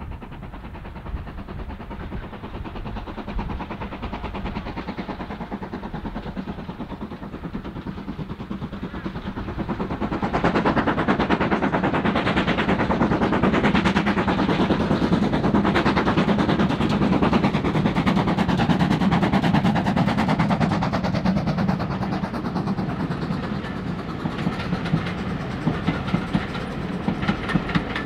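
A steam train approaching and passing. The sound builds, and about ten seconds in it turns loud and dense with rapid beats as the locomotive comes by; near the end the wheels clack over the rail joints.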